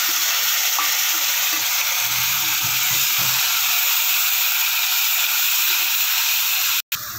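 Onions and freshly added wet masala paste sizzling in hot oil in a kadhai: a steady, loud hiss that cuts off suddenly near the end.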